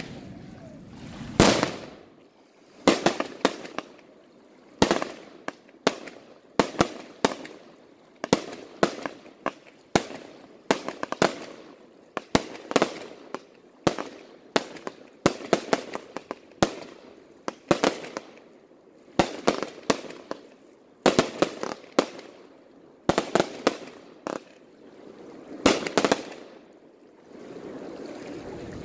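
Aerial fireworks going off: a hissing launch, then a long run of sharp bangs and crackles, often in quick clusters, about one to two a second, with another hissing swell near the end.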